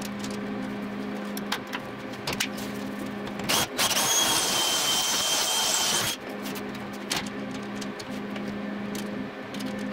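Scattered taps and clicks of a sheet-aluminium floor panel being handled and set into a steel frame. About three and a half seconds in, a power tool runs for about two and a half seconds with a loud hiss and a steady whistle, then cuts off. A steady low hum sits underneath throughout.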